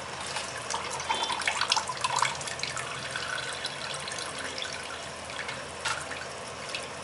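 Spiced tomato stock boiling in a large pot with raw rice just added: bubbling and popping, busiest in the first couple of seconds.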